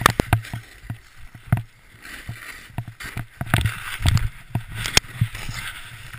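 Snowboard scraping through snow with irregular thumps and knocks as the rider crashes and tumbles, snow spraying against the camera.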